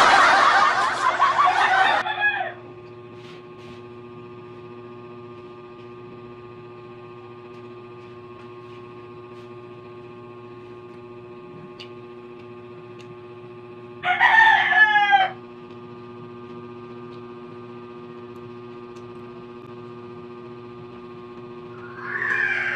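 A rooster crowing twice, once at the start and again about fourteen seconds in, over a steady hum.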